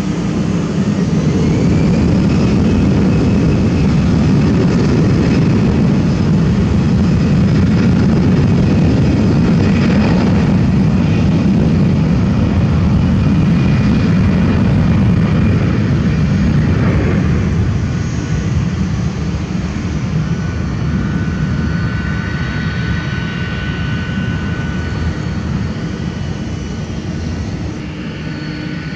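Airbus A320-214's twin CFM56-5B jet engines at takeoff thrust during the takeoff roll: a loud, steady roar, with a whine climbing in pitch over the first couple of seconds. The roar grows fainter about 17 seconds in.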